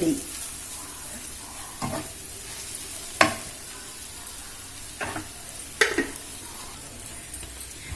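Okra coated in gram flour frying in oil in a pan, a steady sizzle, with a spatula scraping and knocking against the pan four times.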